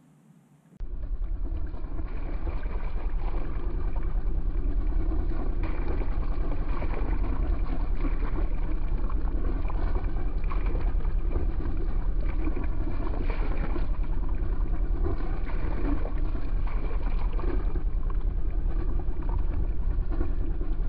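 Beta inboard marine diesel running steadily, heard at its wet exhaust outlet as a low throb with water splashing and gurgling out at the hull's waterline. It starts about a second in.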